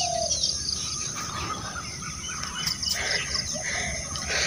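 Outdoor ambience of birds chirping and insects, with short high chirps repeating now and then over a low rumble.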